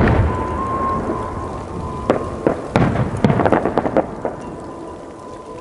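Aerial firework shells bursting: a deep boom with a rolling rumble at the start, then a quick run of sharp cracks and reports about two to four seconds in, dying away near the end.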